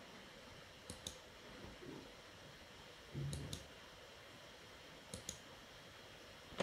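Computer mouse clicking in quick pairs, three double-clicks about two seconds apart, over faint room noise. A soft low thump comes about three seconds in.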